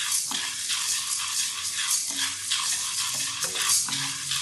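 Whole green gram dry-roasting without oil in a stainless steel kadai, stirred with a wooden spatula: the grains scrape and rattle across the pan with each quick stroke.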